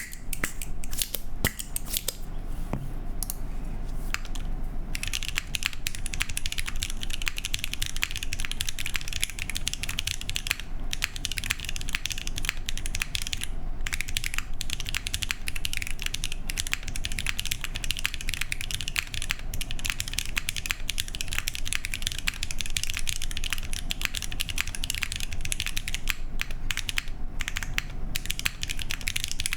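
Typing on a custom mechanical keyboard, a Singa x TGR Unikorn with lubed and filmed Tecsee Purple Panda tactile switches, an aluminium plate and GMK keycaps. A few separate keystrokes come first, then fast continuous typing from about five seconds in.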